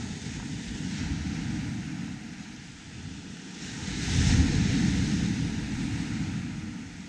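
Surf breaking and washing up a sandy beach, with wind rumbling on the microphone throughout; a wave crashes and hisses up the sand about four seconds in, the loudest moment.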